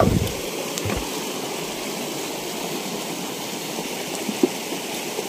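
Steady rush of flowing stream water, with a couple of dull knocks in the first second and a sharp click about four and a half seconds in.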